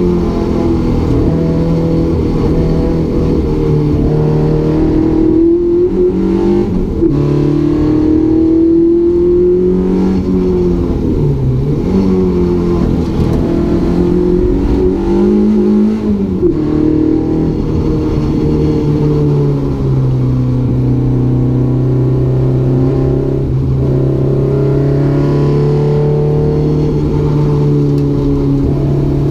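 Renault Clio 172's four-cylinder engine heard from inside the cabin, revving up and dropping back several times as the car accelerates, changes gear and lifts, then holding a steady pitch for the last third. It is a freshly fitted engine, limited to 6000 rpm to protect it.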